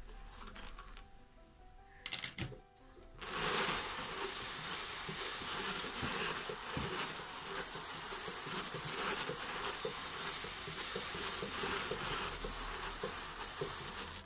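Hand-cranked drum carder turning steadily, the wire carding cloth hissing and scratching as the fibre batt is pressed down onto the large drum. Brief clicks about two seconds in, then the steady hiss starts about three seconds in and stops abruptly near the end.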